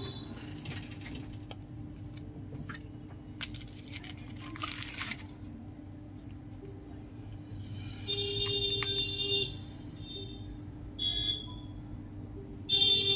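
Small clicks and a brief scraping rustle as an iPhone 14 Pro's display is pried away from its frame by hand, over a steady low hum. From about eight seconds in, a high pitched sound comes and goes in short stretches and is the loudest thing heard.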